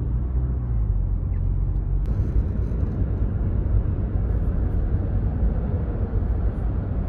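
Car interior noise while driving: a steady low engine and road rumble heard inside the cabin, growing noisier about two seconds in.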